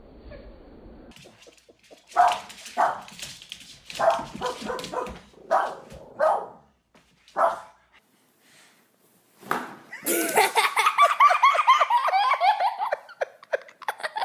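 A dog barking: about seven separate barks spaced a second or so apart. About ten seconds in comes a fast, continuous run of higher yelps lasting a few seconds.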